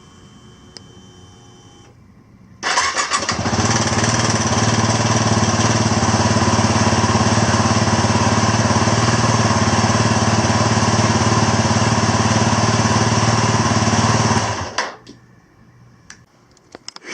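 Yamaha WR250R's single-cylinder four-stroke engine cranked on the electric starter, catching after about half a second and running steadily at an even idle for about eleven seconds before being switched off and stopping abruptly.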